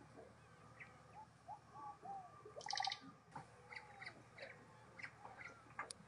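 Faint scattered bird chirps and short calls, with one louder, harsh call a little before the middle.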